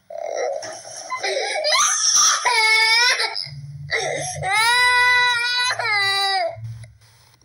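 A high-pitched voice crying loudly. A breathy, sobbing stretch comes first, then two long wavering wails, the second lasting about two seconds, dying away near the end.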